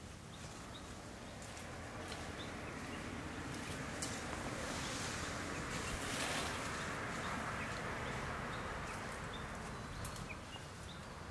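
Outdoor ambience: a broad rushing noise swells over several seconds, peaks about halfway, then eases off, with a few faint short chirps.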